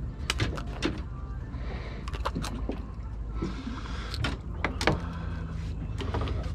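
Scattered sharp knocks and clatter of fishing gear against a fiberglass boat, over a steady low rumble of wind and water.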